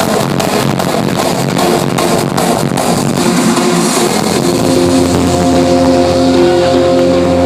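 Hardstyle electronic dance music, loud. The driving beat, about three kicks a second, fades out about three seconds in and gives way to long held synth chords.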